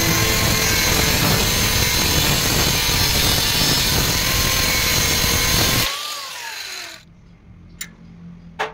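Angle grinder disc grinding the edge of a thick steel plate, a loud steady grinding hiss. About six seconds in the grinding stops and the motor winds down with a falling whine, followed by two faint clicks near the end.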